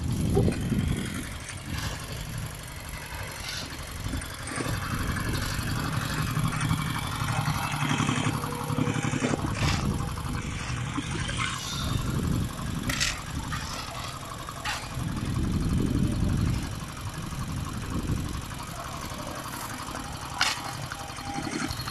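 Small engine of a walk-behind double-drum vibratory roller running steadily while compacting fresh asphalt, its loudness rising and falling, with a few sharp clicks or knocks.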